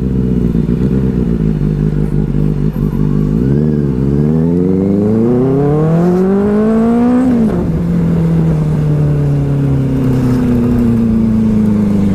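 Benelli 600i's inline-four engine under way: it runs steadily, dips briefly and picks up again about four seconds in, then revs up in one long rising sweep for about three seconds. The pitch then drops suddenly and it holds a steady note that slowly falls.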